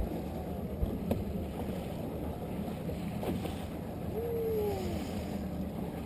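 Outboard trolling motor running steadily as the boat trolls at about 3 mph, with wind and water noise. A short falling whistle-like tone sounds about four seconds in.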